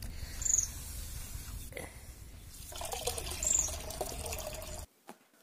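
Water swishing as ragi (finger millet) grains are washed by hand in an aluminium pot, then the washing water is poured off into another pot. The sound cuts off abruptly near the end.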